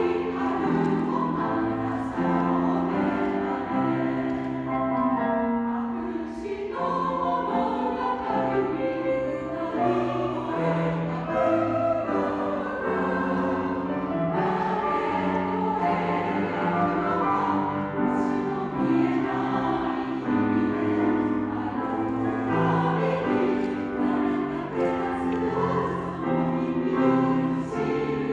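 Large amateur choir singing a Japanese choral song with piano accompaniment, sustained notes moving in several voice parts without a break.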